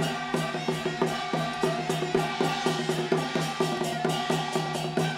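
Taiwanese glove-puppet theatre music from the live backstage ensemble: a percussion-led passage with a fast, even beat of about four strokes a second over a held low note.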